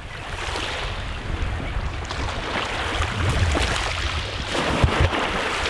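Small waves lapping at the shoreline, with wind buffeting the microphone in uneven low gusts.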